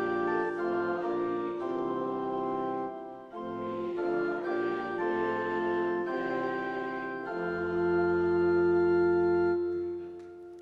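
Organ playing slow, sustained chords, closing on a long final chord that stops about nine and a half seconds in and dies away.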